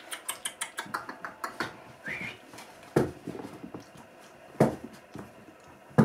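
A brown paper bag shaken and banged against the carpeted floor as a noise test for a German Shepherd puppy: a quick run of rattling clicks, then three heavy thuds about a second and a half apart. A short high squeak comes about two seconds in.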